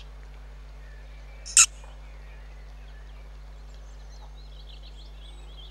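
Faint outdoor birdsong over a low steady hum, broken about one and a half seconds in by a single short, sharp high-pitched sound.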